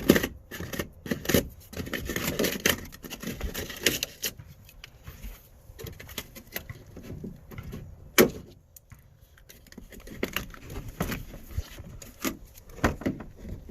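Plastic clicking, cracking and knocking as a factory car-door speaker is broken out of its plastic mount by hand, with one loud knock about eight seconds in.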